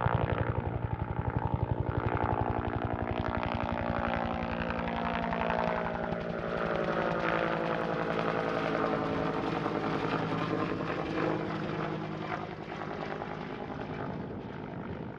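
Helicopter in flight: fast, steady rotor blade chop with a droning tone that slowly drops in pitch, fading away near the end.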